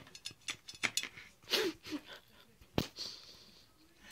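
A person's short, breathy puffs, snorts and sniffs, with one sharp knock a little under three seconds in.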